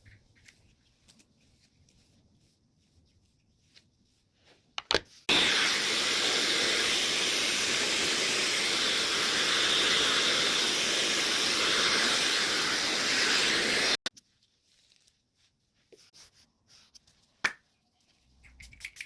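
Handheld hair dryer switched on with a click about five seconds in, blowing steadily for about nine seconds, then cut off abruptly. Faint handling clicks before and after.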